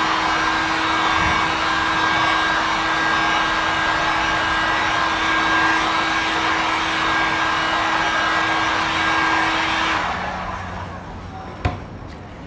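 Handheld electric hot-air heat gun blowing steadily with a fan hum, force-drying freshly brushed touch-up clear coat. About ten seconds in it is switched off and winds down, and a single click follows.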